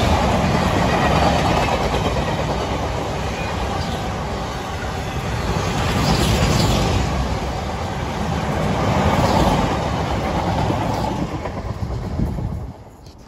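A Class 66 diesel freight locomotive and a long rake of empty freight wagons run through at speed. The loud rumble and clatter of wheels on rail swells and eases a few times, then cuts off suddenly near the end as the last wagon passes.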